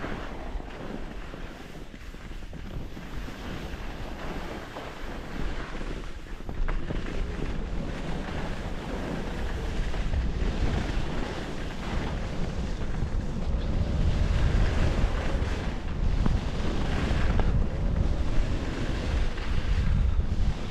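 Wind rushing over the microphone of a skier moving downhill, with the skis hissing over the snow. It grows louder about six seconds in.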